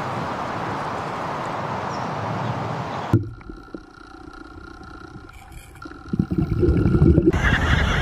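A steady rush of sea water and surf. About three seconds in it cuts to a quieter underwater recording with steady tones and a sea lion's low calls, which grow louder about two seconds later. Near the end a louder mix of water and seabird cries sets in.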